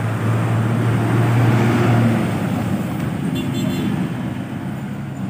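A motor vehicle engine running steadily close by, with a low hum that is strongest for the first two seconds and then fades, over street traffic noise.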